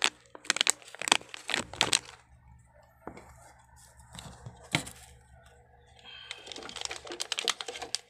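Plastic anti-static bag being torn open and crinkled: sharp crackles in the first two seconds, a single crack near the middle, then steady crinkling over the last two seconds.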